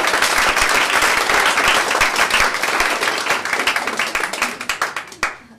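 Audience applauding, dense clapping that thins out and stops near the end.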